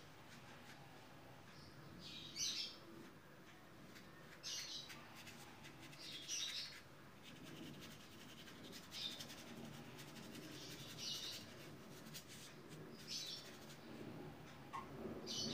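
A bird chirping faintly, one short call about every two seconds.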